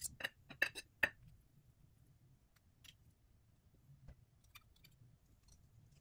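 Metal fork and spoon clinking against a ceramic plate while twirling spaghetti: a quick run of sharp clicks in the first second, then occasional faint clicks.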